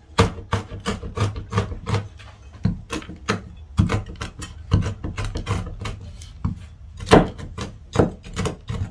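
Kitchen knife chopping hazelnuts on a wooden cutting board: a quick, irregular run of sharp chops, about three a second.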